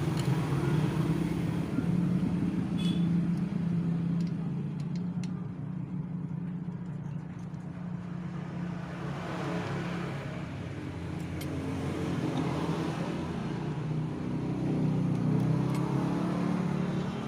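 An engine running steadily, with a few faint clicks over it.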